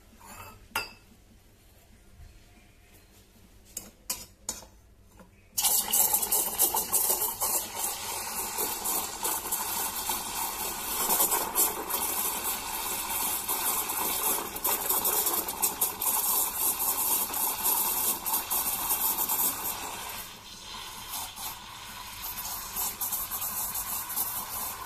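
Steam wand of a Tecnora Classico TCM 107m espresso machine frothing milk in a stainless steel pitcher. A few light clinks as the pitcher is set under the wand, then about five seconds in the steam comes on suddenly with a loud, steady hiss. The hiss is a little quieter for the last few seconds.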